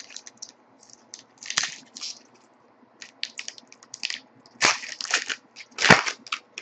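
Foil wrapper of a trading-card pack crinkling and tearing as it is opened, in irregular crackles, the loudest just before the end.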